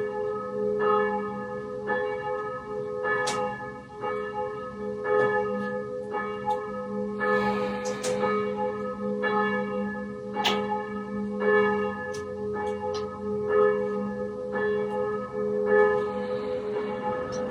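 Church bells ringing: a steady run of strikes a little more often than once a second, bells of several pitches sounding in turn, their tones overlapping and humming on between strikes.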